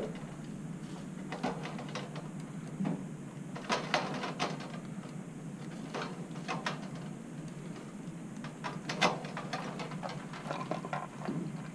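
Hand wire cutters snipping ballast lead wires: a scatter of separate sharp clicks and snips, the strongest about four seconds and nine seconds in, over a steady low hum.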